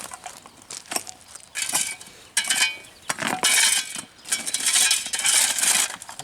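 Metal hand tools scraping and clinking against the driveway surface in a run of irregular strokes, with a few short metallic rings about two and a half seconds in.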